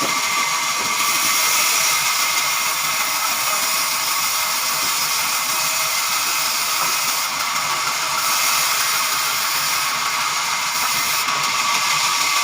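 Sawmill band saw cutting a jackfruit log: a steady high hiss with a faint whine, unbroken and at an even level.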